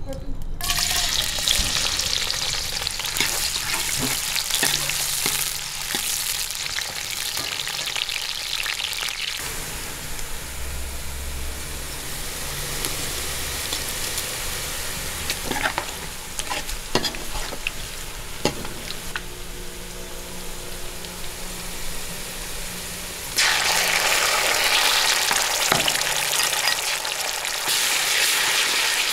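Sliced onions and whole spices sizzling in hot cooking oil in a steel karahi. The sizzle starts suddenly just after the start, with a few clinks and scrapes of a steel ladle stirring. The sizzle gets louder about three-quarters of the way through.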